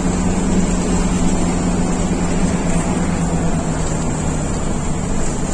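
Engine drone and road rumble heard from inside the cabin of a long-distance coach driving at speed. A steady engine hum sits over the rumble and drops away about four and a half seconds in.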